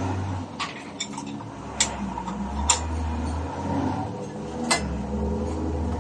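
Metal parts and tools clinking and tapping against each other: a handful of sharp clinks, the loudest nearly three seconds in and near the end, over a steady low hum.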